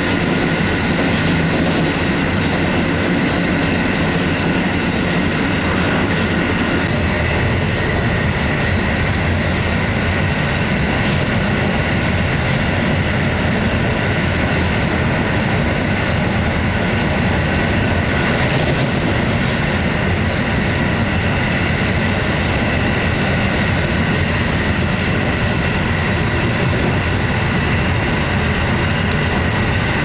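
Running noise heard inside a JR Hokkaido 785 series electric express train at speed: a steady rumble of wheels on rail with a steady whine over it. A low hum drops away about seven seconds in.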